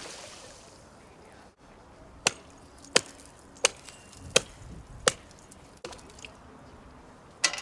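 Lake ice being hacked open with a long pole: sharp chopping strikes on the ice, five in a steady run about two-thirds of a second apart, then one more after a pause near the end.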